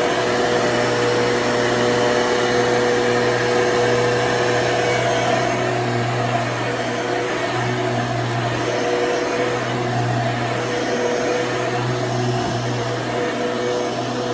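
1994 Hoover Runabout upright vacuum cleaner running steadily on its new Elite motor and roller, a constant motor hum with a few steady tones on top.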